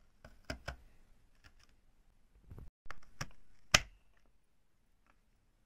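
Kitchen knife cutting through the tough end of a lotus root, a handful of sharp clicks and knocks as the blade breaks through and taps the cutting surface, the loudest about four seconds in.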